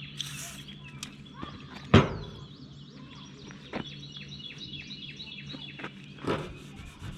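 Birds chirping over a steady low hum, with one loud thump about two seconds in and a softer knock near the end.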